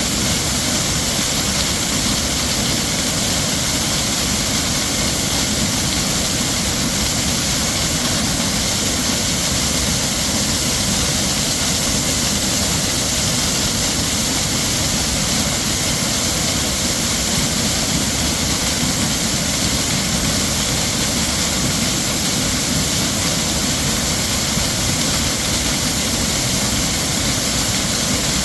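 Heavy waterfall: a dense, steady rush of falling water with no change.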